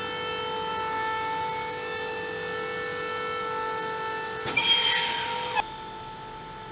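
Steady mechanical whine of shop machinery, several tones held at once. About four and a half seconds in, a loud hissing squeal comes in and cuts off abruptly about a second later, leaving a quieter whine.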